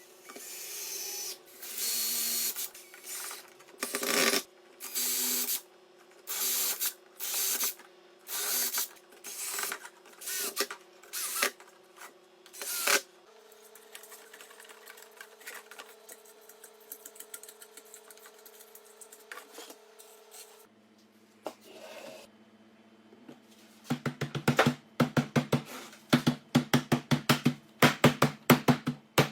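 Power-tool work: a steady motor hum with a series of loud rasping strokes. The hum then drops to a quieter tone, and a fast rattling run of short pulses follows near the end.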